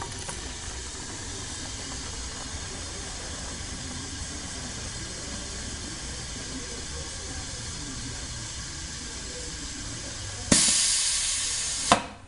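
Pneumatic piston filling machine dispensing liquid soap into a bottle, with a steady hiss of air. About ten and a half seconds in, a louder rush of air lasts about a second and a half and ends in a sharp click.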